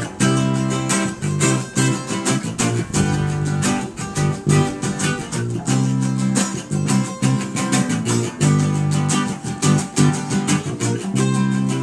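Instrumental break of a band song with no singing: strummed guitar over a bass line, with sharp regular strokes keeping the beat.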